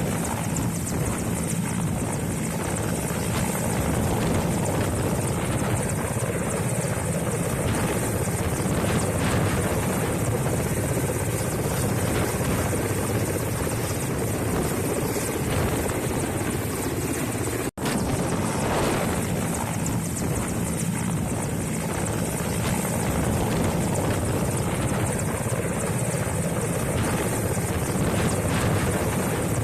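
Firefighting helicopter running steadily, a continuous rotor and engine drone. It cuts out for an instant a little past halfway.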